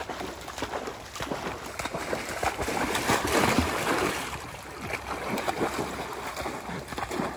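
A black retriever bounding and splashing through knee-deep flooded-timber water on a retrieve, with churning, irregular sloshing that is loudest about halfway through.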